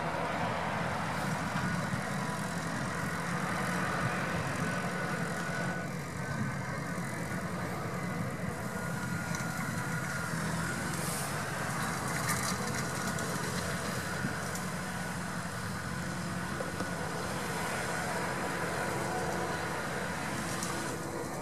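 McCormick MC105 tractor's diesel engine running steadily under load while pulling a rotary hay tedder through cut hay.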